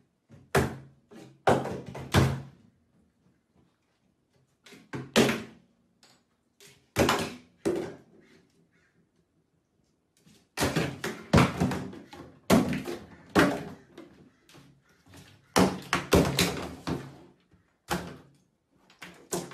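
Plastic shampoo and body-wash bottles knocked off a bathtub rim by a small dog, falling into the tub. Sharp knocks come in several bunches with quiet pauses between, the busiest stretch running from about halfway to near the end.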